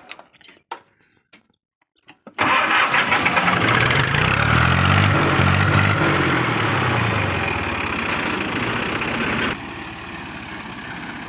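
A farm tractor's diesel engine starts suddenly about two seconds in, after a few light clicks. It revs up, settles back, and carries on running; near the end it is quieter and steady.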